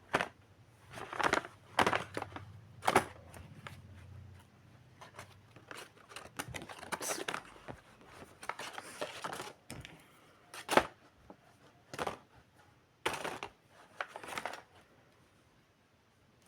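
Small items and their packaging being handled and packed back into a box: irregular clicks, light knocks and rustling.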